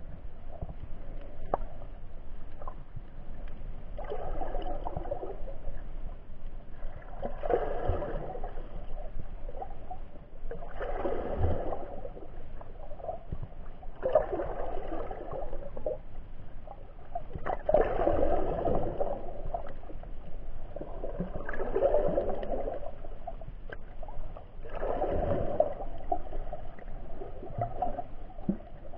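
Underwater noise heard through an action camera's waterproof housing, swelling and fading in regular surges about every three and a half seconds.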